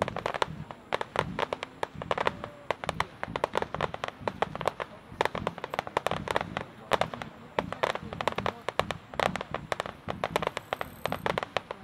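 Fireworks going off in a fast, irregular string of sharp cracks and bangs, several a second, without a pause.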